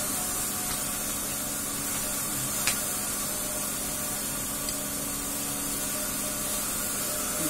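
Steady hiss of a gas stove burner running on a high flame, with one light click about two and a half seconds in.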